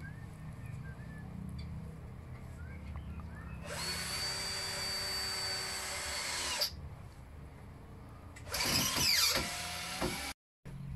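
Power drill driving a screw into the timber frame, running steadily for about three seconds from about four seconds in. A second, shorter and rougher run of the drill comes near the end.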